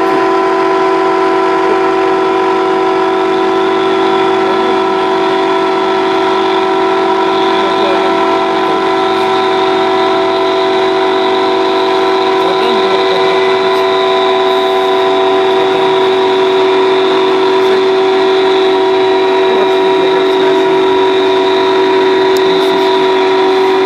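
Heavy farm machinery running flat out at constant speed: a loud, steady, high-pitched drone that holds one pitch throughout.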